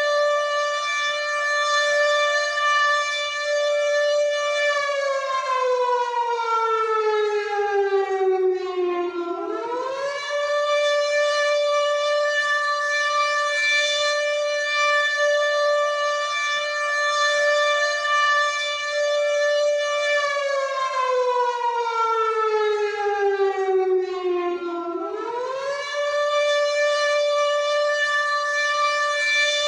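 WW2-style air raid siren wailing. It holds a steady high note, slides slowly down in pitch over about four seconds, then quickly winds back up to the high note, twice.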